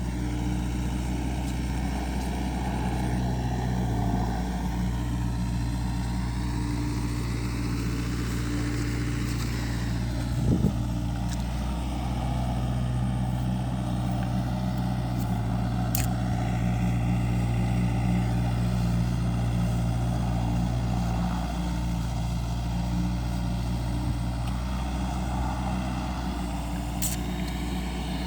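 Kobelco SK50 mini excavator's diesel engine running steadily, its pitch shifting slightly now and then. A single sharp knock comes about ten seconds in.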